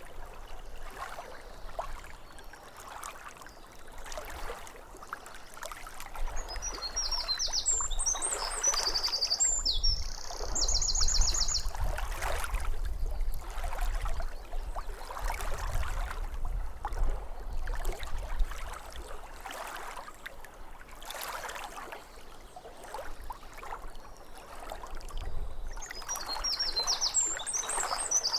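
Small waves lapping at a lake shore, a watery wash that swells and fades every few seconds, with a low rumble through the middle. A songbird sings a short high phrase ending in a rapid trill, about seven seconds in and again near the end.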